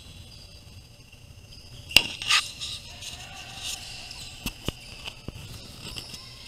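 Basketball game sounds: a loud, sharp bang about two seconds in, then a few lighter sharp knocks, over a steady high hiss of background noise.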